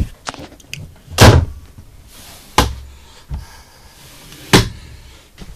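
Ambulance storage cabinet doors being opened and knocked shut. About four sharp knocks, the loudest a little over a second in.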